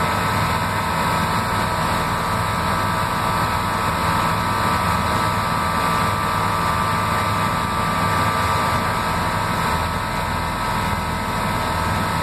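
Floatplane engine running steadily at low power while taxiing on the water: an even drone with a steady higher whine over it.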